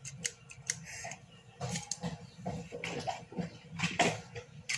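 Handling noises from rummaging through a bag of toys: irregular rustles, light knocks and clicks of toys being moved, with one louder knock about four seconds in.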